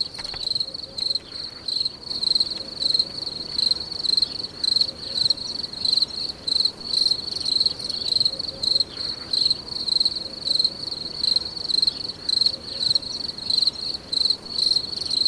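Cricket chirping: a high, pure trill pulsing in even chirps, about three a second.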